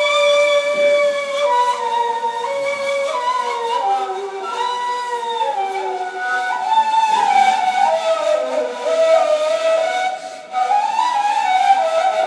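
Two neys, end-blown reed flutes, playing an improvised melody together in Ottoman classical style, the pitch sliding between held notes. The sound dips briefly about ten seconds in, then picks up again.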